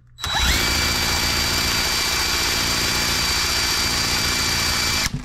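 Cordless drill spinning the H75 Holt model four-cylinder engine over by its flywheel. The drill whines up to speed, runs steadily for about five seconds, then stops suddenly. The engine turns over dry without firing, as there is no fuel in it.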